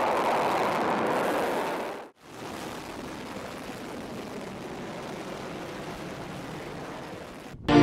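Rocket motor of a ballistic missile at launch: a steady rushing noise that drops out briefly about two seconds in and comes back quieter.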